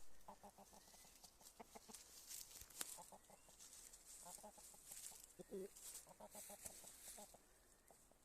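Chickens clucking softly in several runs of quick, short clucks, with one lower, drawn-out call about five and a half seconds in.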